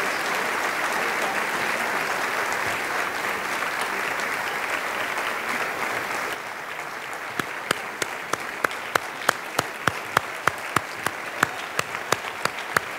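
Audience applauding, dense at first, then thinning about six seconds in, when one pair of hands close by keeps clapping sharply and steadily, about three or four claps a second.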